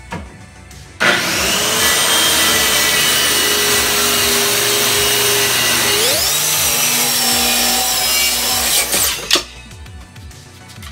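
Corded circular saw starting up and cutting along a plywood panel, with a steady motor whine under the noise of the blade in the wood. Its pitch rises about six seconds in, and it stops with a sharp knock about nine seconds in.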